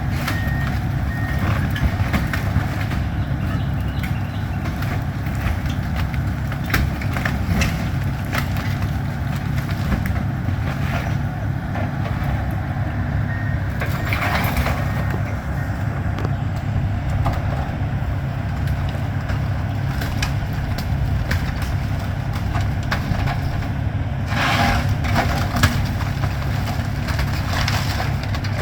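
Excavator's diesel engine running steadily while a house is demolished, with frequent cracks and knocks of breaking wood and debris and a louder crash of falling material about halfway through and again near the end. A backup alarm beeps briefly at the start and about halfway through.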